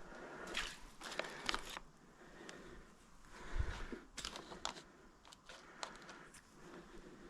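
Scattered light clicks, scrapes and a dull thump of metal drivetrain parts being handled while the rear drive shaft is worked onto its splines.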